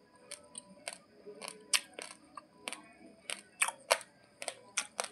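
Raw basmati rice grains being crunched between the teeth: about a dozen sharp, irregular cracks, some much louder than others.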